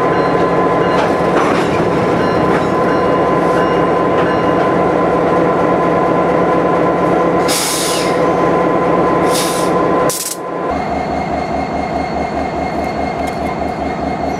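Diesel freight locomotives at close range: the standing GP38-2's engine idling with a steady hum, and three short hissing bursts between about 7 and 10 seconds in. After an abrupt change near the end, the SD70ACe comes slowly closer, its diesel engine pulsing in a fast, even beat.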